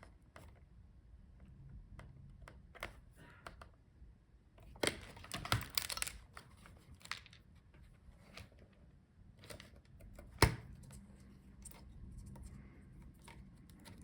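Scattered clicks, taps and plastic rustles as a laptop's palmrest, glued touchpad and keyboard are handled and pressed by hand. A cluster of clicks comes around the middle, and one sharp click about ten and a half seconds in is the loudest.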